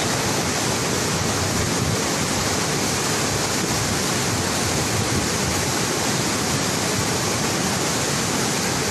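Flash-flood torrent of muddy water rushing, a loud, steady rush that does not let up.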